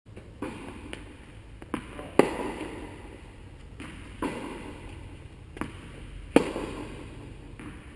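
Tennis ball rally: sharp pops of racquets striking the ball and the ball bouncing on the court, each ringing on in the hall's echo. The two loudest hits come about two seconds in and again a little after six seconds, from the near player's racquet.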